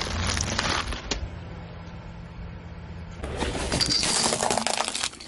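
Car tyre rolling over and crushing plastic toys. A burst of cracking and crunching comes in the first second, then a longer spell of plastic cracking and snapping starts about three seconds in, over the low steady hum of the car.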